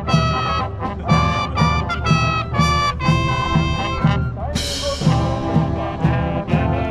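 Swing-style jazz music led by brass horns over a steady beat of about two hits a second, with a bright crash about four and a half seconds in.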